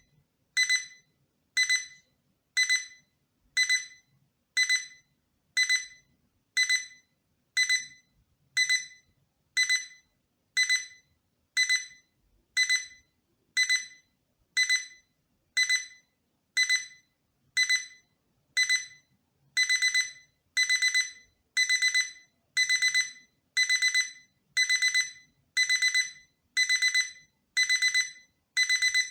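Electronic alarm of a digital projection alarm clock beeping: a high, piercing beep about once a second. About two-thirds of the way in it changes to quick clusters of beeps, the alarm stepping up.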